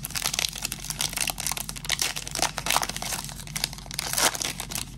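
Crinkling and tearing of a baseball card pack's wrapper as the pack is torn open and handled: a dense, irregular crackle with a few louder crackles.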